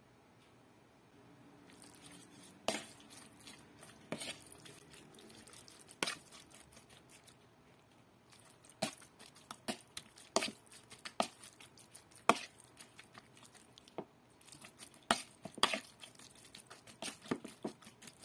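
Metal spoon mixing raw chicken skin in a plastic bowl, starting about two seconds in: irregular clacks and scrapes of the spoon against the bowl over the soft sound of the wet skin being turned.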